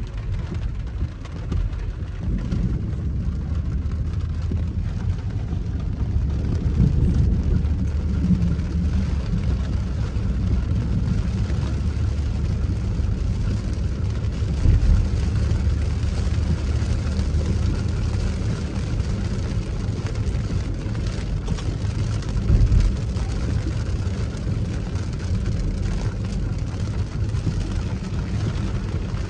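Car cabin noise while driving on a wet road: a steady low rumble of engine and tyres with a hiss of water spray from the tyres, the hiss growing louder about ten seconds in. Two brief louder thumps come about halfway through and again a few seconds later.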